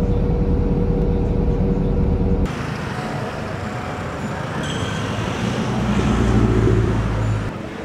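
City traffic: a bus engine running steadily close by, cut off about two and a half seconds in. Lighter street noise follows, with a motor vehicle passing that is loudest near the end.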